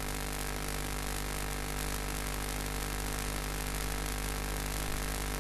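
Steady electrical buzz and hiss in the recording chain, a hum made of many evenly spaced tones that holds level throughout.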